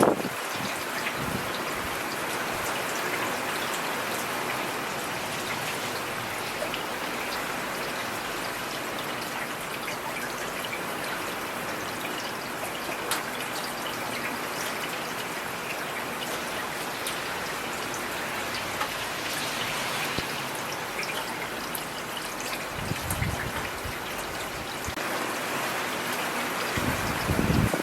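Steady rain falling on a street: an even hiss of rain with pattering drops and trickling runoff. Brief low rumbles rise under it near the start, again late on, and just before the end.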